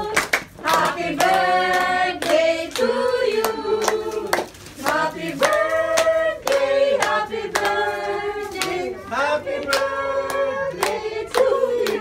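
A group of people singing together and clapping along in a steady beat.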